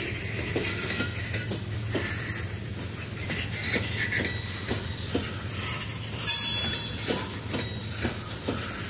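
Freight cars of a CSX phosphate train rolling past, their wheels clicking over rail joints in an uneven rhythm over a steady rumble. A brief louder hiss comes about six seconds in.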